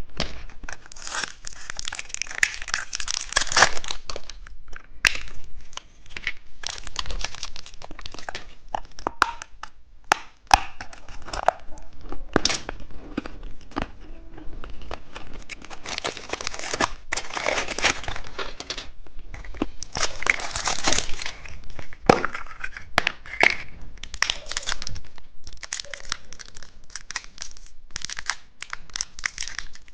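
Plastic candy wrappers being crinkled and torn open: irregular rustling and crackling with scattered sharp clicks.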